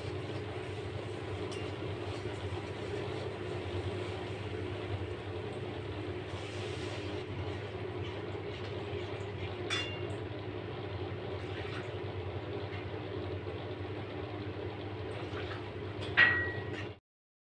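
A metal spatula clinks against a metal cooking pan over a steady low hum: one sharp clink about ten seconds in, and a louder clink that rings briefly near the end. Then the sound cuts out abruptly.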